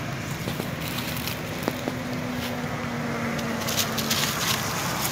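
Steady outdoor background noise of road traffic: a low, even rumble with a faint hum held for a few seconds in the middle and a few scattered light clicks.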